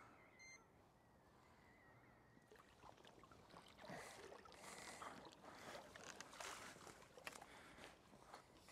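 Faint splashing and sloshing of water, beginning about three seconds in, as a hooked bream thrashes at the surface and is drawn into a landing net.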